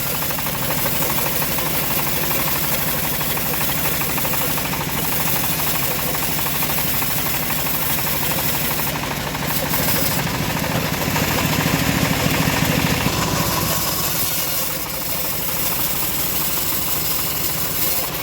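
Engine of a homemade bandsaw sawmill running steadily, a little louder for a few seconds past the middle.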